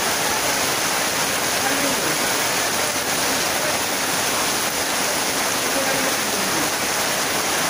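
Heavy downpour falling on a corrugated tin roof: a dense, steady hiss of rain.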